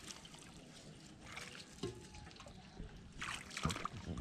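Shallow river water trickling and splashing. A cluster of louder splashes comes about three seconds in, from bare feet wading through the shallows.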